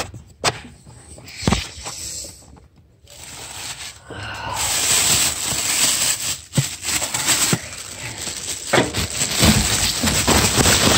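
Plastic wrapping rustling and crinkling close to the microphone while it is handled, becoming loud and continuous about four seconds in, with a few sharp knocks among it.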